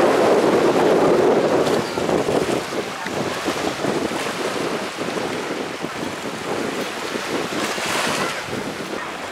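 Wind buffeting the microphone over the steady wash of small sea waves on a beach. The wind is strongest in the first two seconds, then eases.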